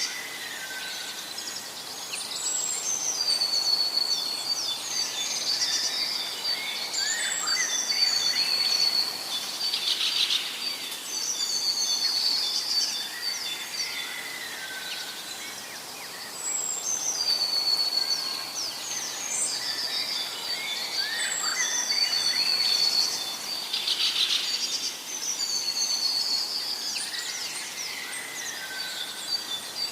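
Several birds chirping and singing in high-pitched phrases that come again every few seconds, over a steady background hiss.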